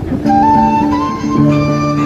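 Instrumental background music: a melody of held notes that step and slide upward, over sustained low chords.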